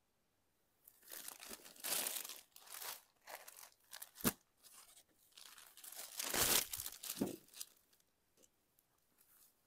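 Crinkling and rustling from something being handled, in irregular bursts, with a sharp click about four seconds in and the loudest crinkle a couple of seconds later.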